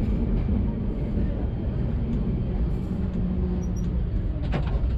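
A 1934 ex-Sydney heritage tram rolling slowly along street track, a steady low rumble with a few sharp clicks near the end.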